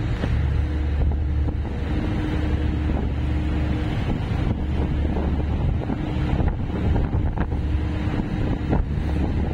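Passenger ferry underway: the ship's engines drone low and steady beneath wind buffeting the microphone and the rush of sea water along the hull.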